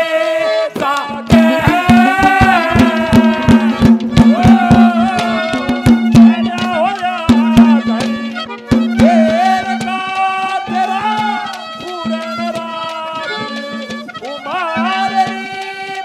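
Haryanvi folk music accompaniment between sung lines: a held harmonium-like drone with a wavering melody line over it, and a fast run of hand-drum strokes for roughly the first half that then thins out.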